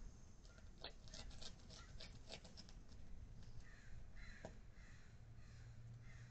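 Faint bird calls: a quick run of short, sharp chirps over the first few seconds, then a few longer, softer calls, over a light steady hum.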